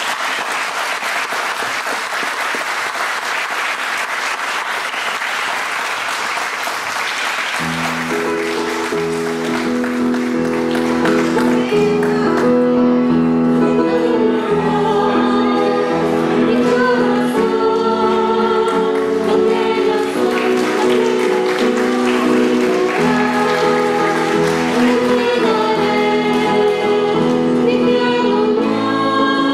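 Congregation applauding the newly presented couple for about the first seven seconds. Then music begins: held chords with singing over them, continuing to the end.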